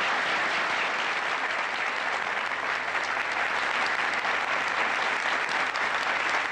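A roomful of people applauding, a dense, steady clapping.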